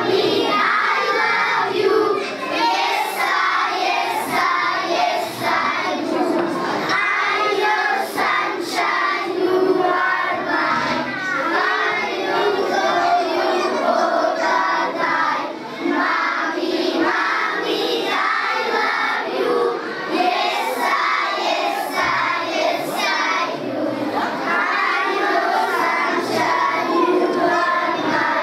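A group of young children singing a song in English together.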